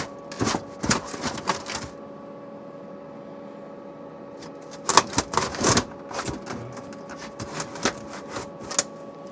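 Clattering knocks and scrapes of the old RV water heater being worked loose in its metal compartment, in two busy clusters at the start and around five seconds in, with scattered lighter ticks between. A steady hum runs underneath.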